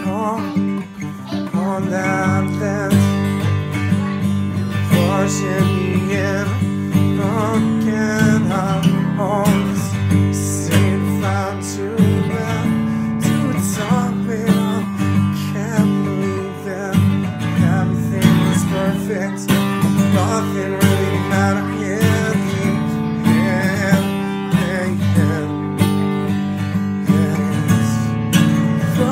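Acoustic guitar strummed steadily, with a voice singing a wavering melody over it.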